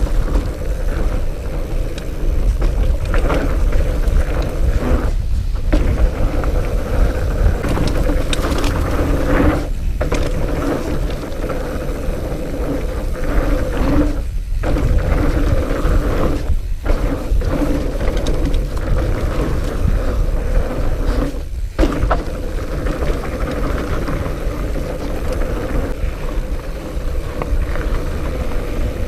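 Fat bike riding on a dirt trail: steady low wind rumble on the action camera's microphone, with the bike's fat tires rolling and humming over the ground and brief dips every few seconds.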